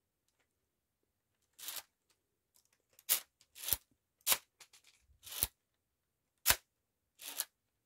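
Mechanism of a semi-automatic rifle built from LEGO bricks clacking as the trigger is worked over and over: about seven sharp plastic snaps at uneven intervals, some crisp and some a little drawn out, as the reversor cycles the action.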